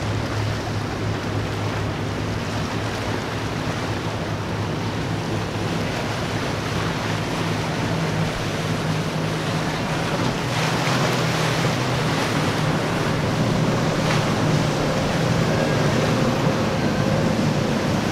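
Outboard engines of a triple-outboard Boston Whaler cabin boat running at speed with a steady low drone, under the rush of its wake and waves and wind on the microphone. It gets louder from about halfway through as the boat passes close.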